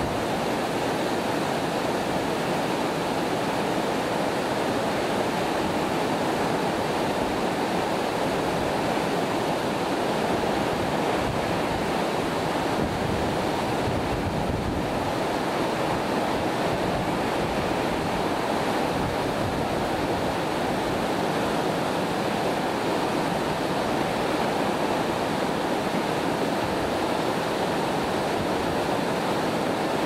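Tall waterfall plunging down a rock face, a steady, deep rush of falling water that does not change.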